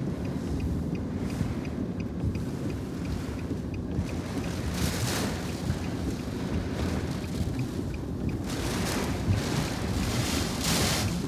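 Storm wind buffeting a vehicle over a steady low rumble, with wind noise hitting the microphone. The gusts swell into a louder rushing hiss twice, about halfway through and again near the end.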